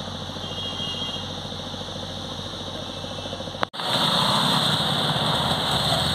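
An engine running steadily. About two-thirds of the way in, a sharp click cuts it off and a louder, hissier engine noise carries on.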